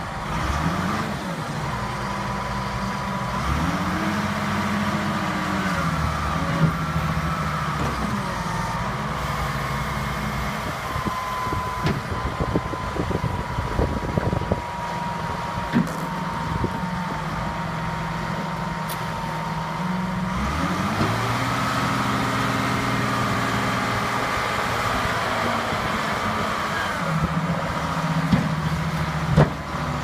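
Dresser 520B wheel loader's diesel engine running and revving up and down several times as the boom and bucket are worked. A high steady whine runs through the middle, with a few sharp knocks about halfway through.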